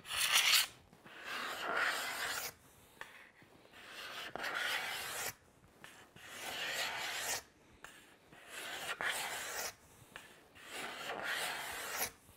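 Hand rasp drawn in long strokes along the belly of an osage orange bow limb, about six strokes with short pauses between, removing wood to tiller the bow.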